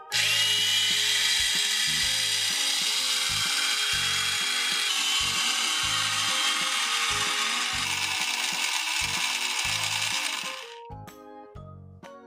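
Small electric pump motor of a toy coffee maker running, pushing water through the brew basket into the carafe: a steady noisy whir with a faint high whine. It starts abruptly at switch-on and stops about ten and a half seconds in, over light background music.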